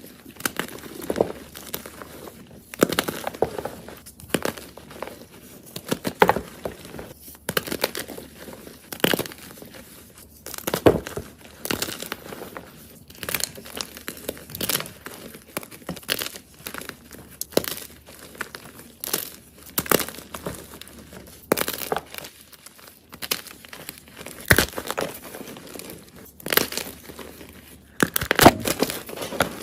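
A soft block of gym chalk being crushed, crunching crisply in repeated crushes about every one to two seconds.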